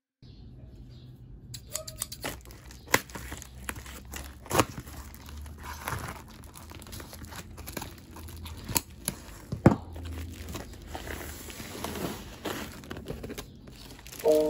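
Plastic bubble mailer crinkling and rustling as it is cut open with scissors and unpacked, with irregular sharp clicks and snips among the rustle.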